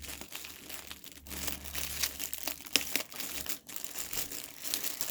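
Wrapping paper and tape on a gift crinkling and rustling as hands try to pull the taped present open, with irregular sharp crackles, the loudest a little under three seconds in.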